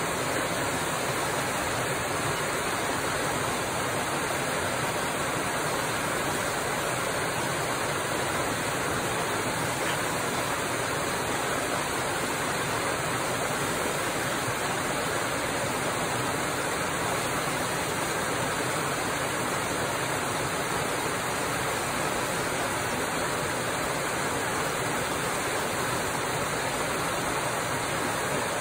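Muddy rain runoff pouring down a small rocky waterfall into a pool: a steady, even rush of water from seasonal floodwater after rain.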